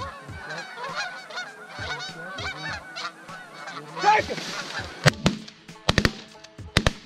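A flock of Canada geese honking, many overlapping calls. About four seconds in comes a loud, sudden burst, followed by several short, sharp sounds in close pairs.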